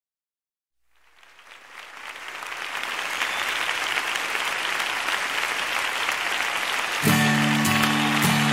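Crowd applause fading in and holding steady, typical of a live recording's opening. About seven seconds in, a band starts the instrumental intro of a worship song over it.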